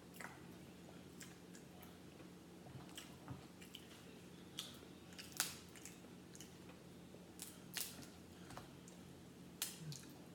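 Crab leg shells cracked and pulled apart by hand: scattered sharp cracks and clicks at irregular moments, with quiet chewing.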